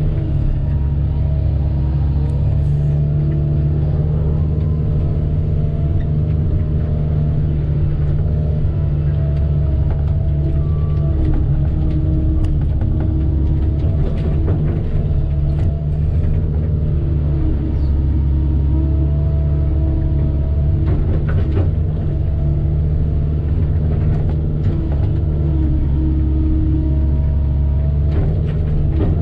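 Excavator's diesel engine running steadily under load while digging and swinging material, with a few sharp clanks about halfway through and again near the end.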